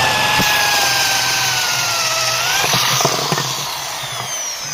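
Power drill running, likely drilling holes for the charge-port panel, its whine sagging slowly in pitch under load with a few clicks, then spinning down near the end.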